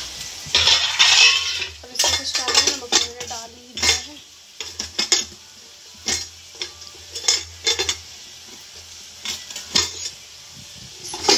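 Stainless-steel spice box clinking and clattering: a spoon knocking against its small steel cups and the steel lid being handled, a series of sharp metallic clinks, some ringing briefly.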